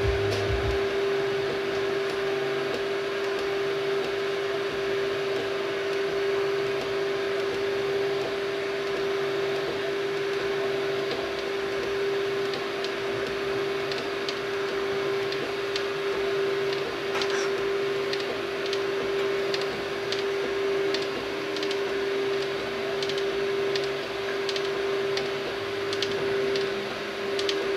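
3D printer running: a steady hum with one clear tone, over a hiss, and faint light ticks in the second half.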